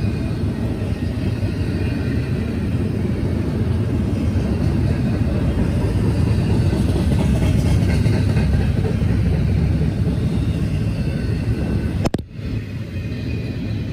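Double-stack intermodal freight train passing at speed, a steady rumble of its well cars on the rails. About twelve seconds in there is a sharp knock as the recording phone blows over, and after it the train sounds muffled.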